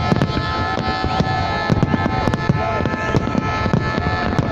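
Fireworks bursting and crackling in quick, irregular bangs over loud music with long held notes.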